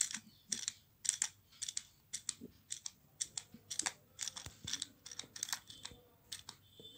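Broken bangle pieces clicking and rattling inside a homemade mirror kaleidoscope as the tube is turned: a run of light, irregular clicks, two or three a second.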